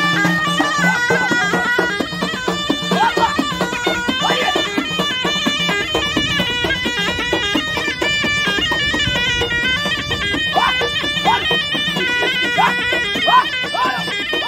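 Traditional folk melody played on a loud, reedy wind instrument, stepping from note to note. A steady low drone sounds under it for the first couple of seconds.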